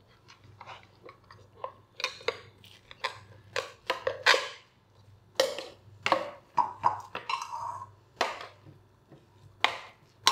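Kitchen clatter: irregular knocks and clinks of dishes, containers and utensils being handled and set down on a counter.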